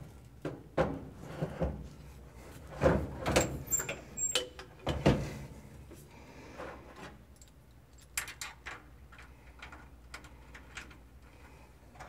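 Irregular metal clunks, knocks and rattles as a steering column and its power-steering motor housing are pushed through a floor swivel and fitted to the column mount. The heaviest knocks come in the first five seconds, then lighter clicks of hardware being set and tightened.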